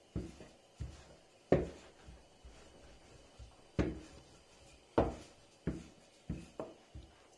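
Wooden rolling pin knocking and rolling against a work surface as a round of dough is rolled out, about ten irregular knocks, the loudest around a second and a half in and again near four and five seconds.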